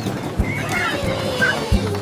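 Children's-song background music with a repeating bass line. A short, wavering high sound effect comes in about half a second in.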